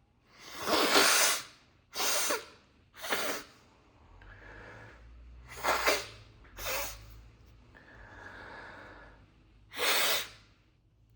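A man sniffing sneezing powder up his nose: six sharp, noisy sniffs, the first about a second long. Softer breathing through the nose comes between them.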